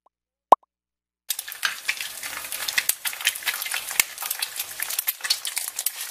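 Two short pitched pops, one at the start and one about half a second in. Then, from just over a second in, the dense crackling sizzle of an egg frying in hot oil, used as a logo sound effect.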